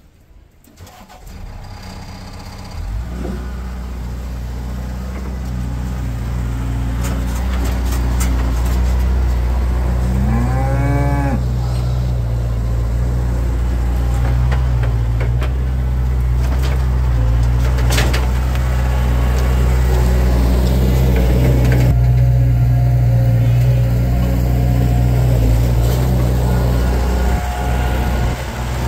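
Skid steer loader's diesel engine running, coming in over the first few seconds and then holding a loud, steady low hum as the machine drives across the yard. A cow moos once, rising then falling, about ten seconds in.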